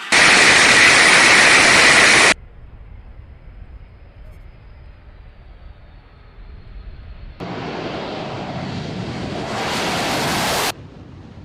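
Aircraft engine noise, a steady loud rush, in two spliced stretches that each start and cut off abruptly. The first lasts about two seconds; the second lasts about three and grows louder partway through. A quieter hiss lies between them.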